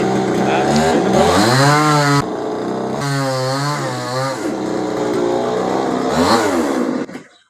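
Chainsaw engine running and revving up and down several times, cutting off suddenly near the end.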